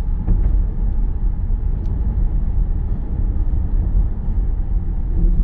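Steady low rumble of a car driving at road speed, tyre and road noise heard from inside the cabin.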